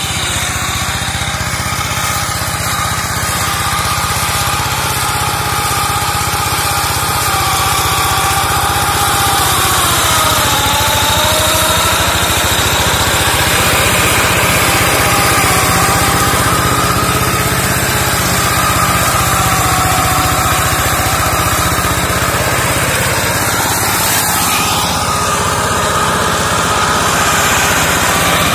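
Two-wheel hand tractor's single-cylinder diesel engine running steadily under load as its front-mounted blade slashes brush. Its pitch sags briefly about ten seconds in and then recovers.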